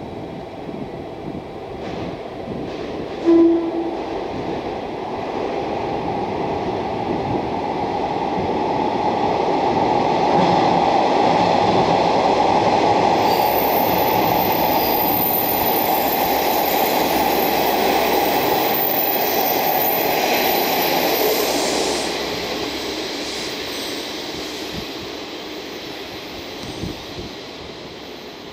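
Four-car JR Kyushu KiHa 47 diesel train running past: its engine and wheel noise builds as it comes close, is loudest while it passes, then fades as it pulls away. A short horn toot sounds about three seconds in.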